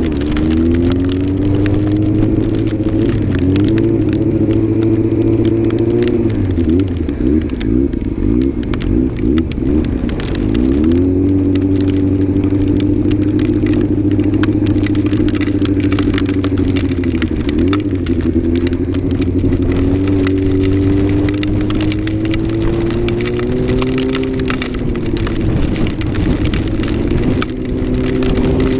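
Yamaha R6 inline-four motorcycle engine running under way, its pitch climbing and sagging as the throttle is opened and eased, with longer drops about a third of the way in and again past the middle, over a steady hiss.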